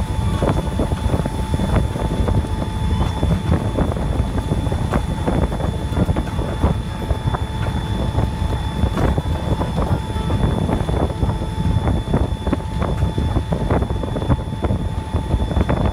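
Passenger train rolling along, heard from on board: a steady low rumble with irregular knocks and clatter from the running gear, a few faint steady whines, and wind buffeting the microphone.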